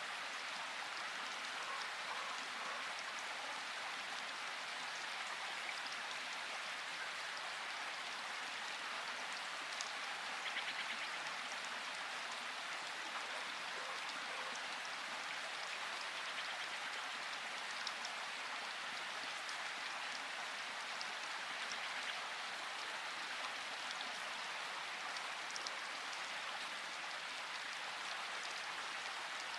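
Steady rain falling in a rainforest: an even hiss of rain with scattered individual drops ticking through it.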